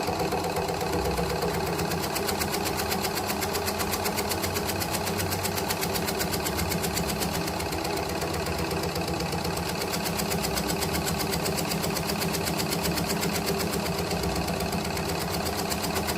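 Motorized tobacco-shredding machine running steadily as it shreds tobacco leaves: a steady engine hum under a fast, even clatter.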